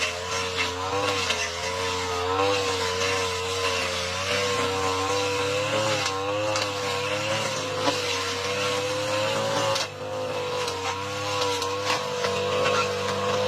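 Lawn mower engine running steadily while cutting thick, overgrown grass, its pitch wavering slightly under the changing load, with scattered sharp ticks.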